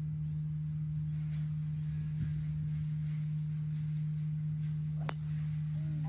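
A steady low hum, with a single sharp crack about five seconds in as a driver strikes a golf ball off the tee.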